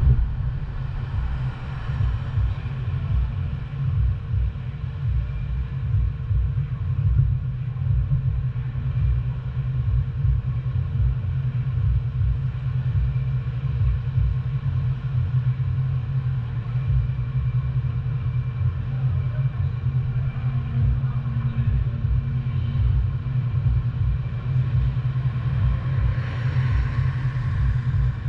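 Steady low rumble of a car driving on city streets: road and engine noise. A brief louder hiss rises near the end.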